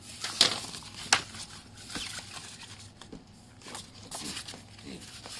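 Sheets of a printed paper instruction manual rustling as they are handled and turned by hand, with irregular crackles. The two sharpest come about half a second and a second in.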